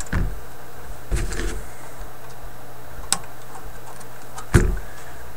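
A few short knocks and clicks of hands working wires and a new filter capacitor into a tube radio chassis, over a steady hiss and faint hum.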